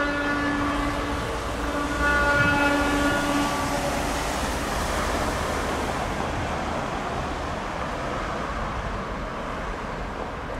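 Multi-tone air horn of an approaching NCA diesel-electric freight locomotive: a blast that ends about a second in and a second, longer blast from about two seconds in, warning at the level crossing ahead. After it, the locomotive's diesel engine runs and the train rumbles steadily on the rails.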